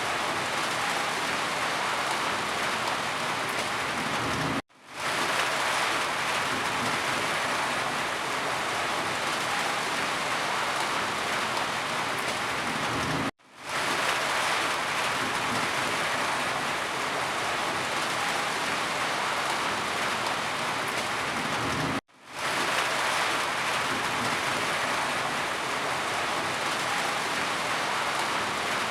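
Rain falling, a dense, even hiss of drops. Three times, evenly spaced about nine seconds apart, it cuts out for an instant and swells straight back in.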